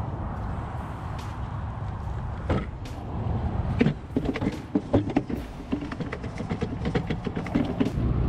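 A series of sharp knocks and clatter as a fish is handled into a plastic cooler, loudest a few seconds in, over a steady low rumble.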